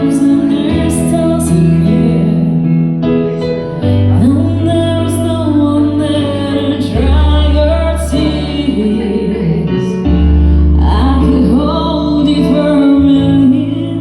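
A female voice singing a slow melody over sustained keyboard chords and bass notes that change every few seconds, played as a sound check.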